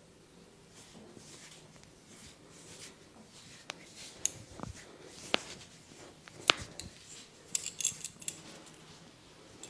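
Sharp clicks and snaps from a hands-on head and body massage, scattered over a faint rubbing of hands on skin and hair, with a quick cluster of clicks near the end.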